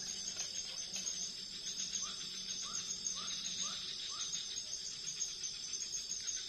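Night insects, crickets among them, keep up a steady high-pitched trill. From about two seconds in comes a run of five short rising calls, a little under half a second apart.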